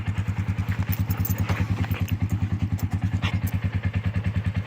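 Microwave oven running under load, giving a loud, steady buzzing hum that pulses rapidly and evenly, with a few light clicks and taps over it.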